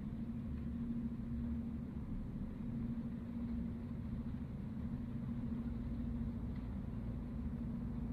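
Low, steady ambient drone: a held hum over a soft rumble, with no clear beat or melody.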